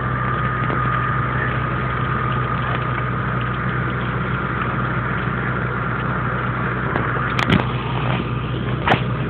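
Fire engine's engine running steadily with a low drone and a steady high whine over it, driving the pump that feeds the hoses. A few sharp clicks come near the end.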